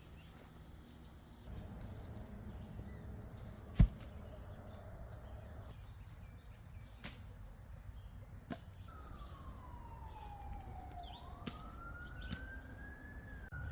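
A faint siren wailing, its pitch sliding slowly down and then rising again in the second half. A single sharp snap about four seconds in.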